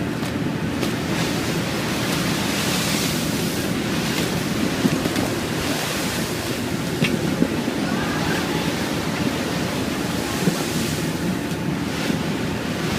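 Rough sea rushing past the hull of a passenger ferry in storm waves about 3 m high, with wind buffeting the microphone and the ship's engine droning underneath. The wash swells and eases every few seconds.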